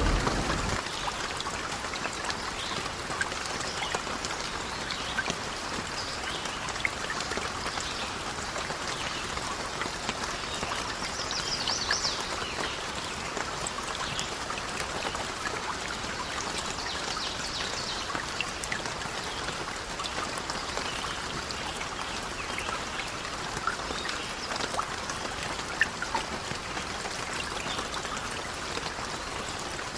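Steady rain falling, with scattered small crackles and ticks over it. A low thunder rumble fades out in the first second.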